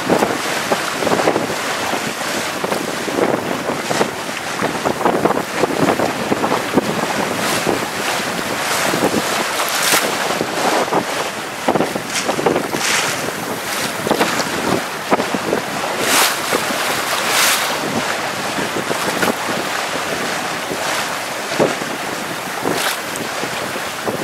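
Wind buffeting the microphone over choppy water, with waves sloshing and splashing; a few sharper hissing moments stand out around the middle.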